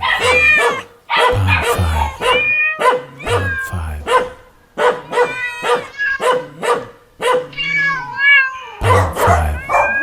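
Dogs barking and cats meowing in quick succession over music with a steady held tone and a repeating low beat.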